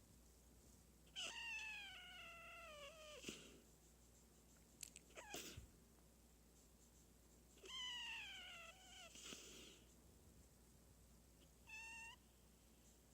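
Micro mini pig snoring in its sleep: faint, high, squeaky whines that slowly fall in pitch, each about two seconds long, twice, with short breathy snorts between them and a brief whine near the end.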